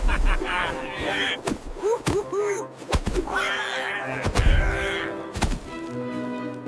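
Cartoon slapstick sound effects: a string of thuds, smacks and whacks, the deepest about three and four and a half seconds in, with short non-word cartoon voice sounds and background music.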